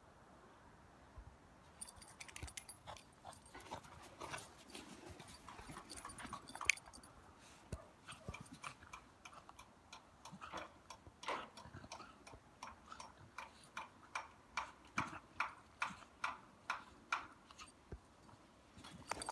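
Snow crunching underfoot as a small dog plays with a rope toy. Scattered faint crunches give way about halfway through to a regular run of about two crunches a second, which stops a couple of seconds before the end.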